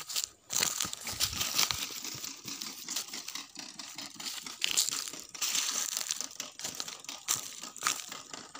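Footsteps crunching and crackling through dry crop stubble and straw on tilled soil: an irregular rustle of many small crackles.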